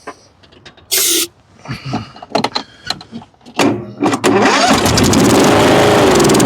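A short hiss about a second in, some clicks and knocks, then the Kohler Courage engine cranks and fires about four seconds in and runs loudly. It fires only on a shot of starting fluid, which shows there is spark and compression and points to a fuel problem.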